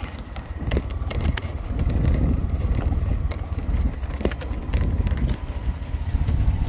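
Mototaxi (three-wheeled auto-rickshaw) running along a road, heard from inside the cab as a low engine-and-road rumble with wind buffeting the microphone. A few short sharp rattles or clicks come through now and then.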